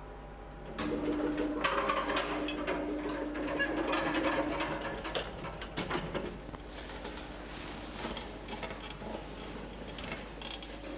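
Lift with its car humming; about a second in it gets louder, with a steady mechanical tone for a few seconds as the lift stops and its doors open. This is followed by repeated clicks and rattles as a manual wheelchair rolls out of the metal car.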